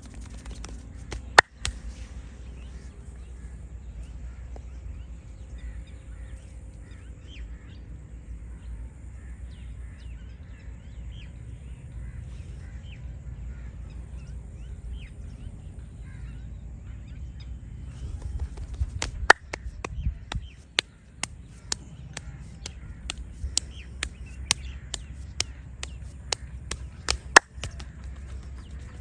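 Sharp cracks and snaps from a head massage: one loud crack about a second and a half in, then a quick irregular run of cracks through the last third. Faint bird calls, including crow caws, sound in between over a low steady rumble.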